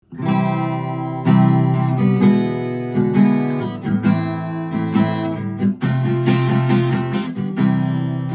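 Yamaha cutaway acoustic guitar strummed in a steady rhythmic chord pattern, with no voice.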